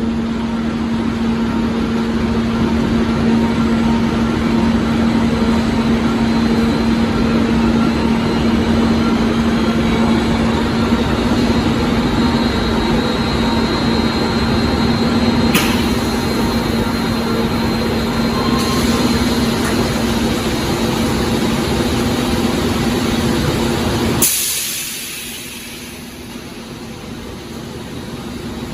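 Automated corrugated-cardboard production line machinery running: a steady mechanical din with a constant hum. A sudden short hiss about 24 seconds in, after which the noise drops noticeably quieter.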